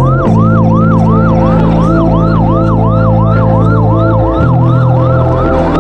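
Emergency vehicle siren in a fast yelp, its pitch sweeping up and down about three times a second, over background music of held low chords that shift about four seconds in.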